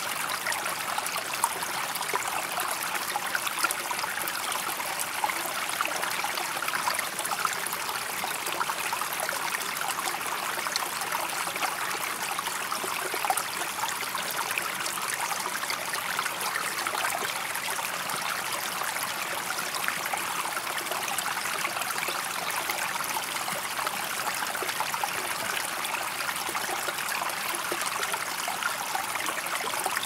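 Falling water splashing steadily, an even bright hiss of fine splashes with little low rumble.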